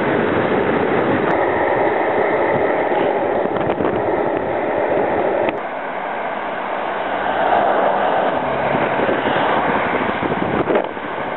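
Longboard wheels rolling fast over rough asphalt, a steady loud roar that cuts off suddenly about halfway through. Then a car drives past close by, its sound swelling and fading away.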